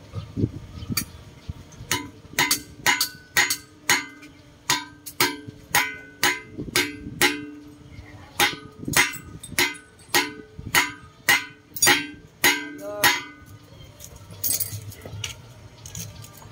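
Hammer blows on steel, tapping a wheel bearing into a steering knuckle: quick, even metallic strikes at two to three a second, each one ringing, with a short break partway through. The hammering stops a few seconds before the end, and a few lighter knocks follow.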